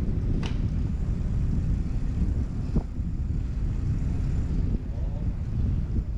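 Wind buffeting the microphone on an open fishing boat: a steady low rumble. A sharp click comes about half a second in, and a fainter knock near the three-second mark.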